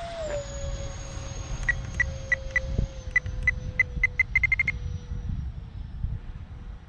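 Twin 70 mm electric ducted fans of an RC F-22 model jet whining, the pitch easing down shortly after the start as the throttle comes back, over wind rumble. A run of short electronic beeps sounds from about a second and a half in, evenly spaced at first, then quickening into a rapid string before stopping.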